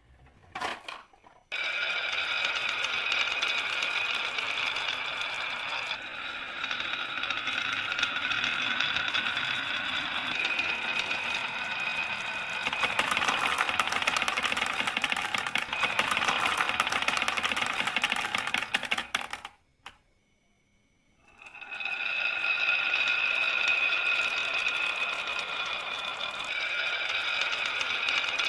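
Marbles rolling and clattering down a marble run track: a dense, steady rattle of small clicks with a ringing hum. It cuts off suddenly about two-thirds of the way through, and starts again about two seconds later.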